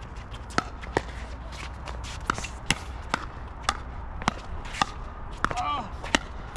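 Pickleball paddles hitting the hard plastic ball in a rally: a string of sharp pops, about one every half second.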